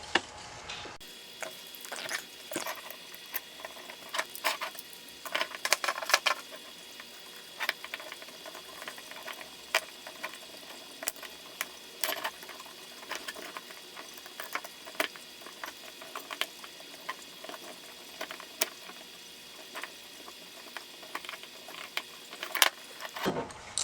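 Scattered light clicks, taps and small knocks of parts being handled and fitted together by hand, irregular and unevenly spaced.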